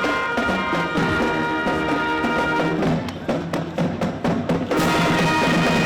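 Marching band playing: horns hold chords, broken about three seconds in by a quick run of drum strikes, then the horns come back in.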